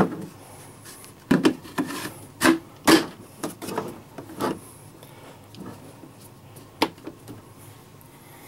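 Parts of a Feelfree Overdrive pedal drive being handled: a run of sharp clicks and knocks of hard plastic and metal, busiest in the first half, with one more click later.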